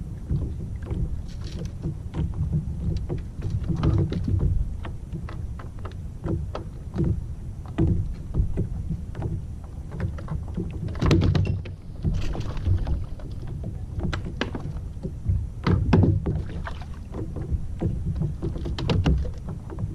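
Small fishing boat on open water: water slapping against the hull in irregular knocks over a steady low rumble, with the loudest knocks about eleven and sixteen seconds in.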